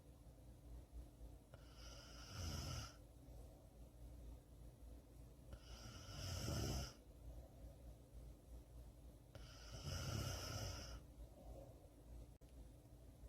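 A person snoring: three snores about four seconds apart, each lasting about a second and a half.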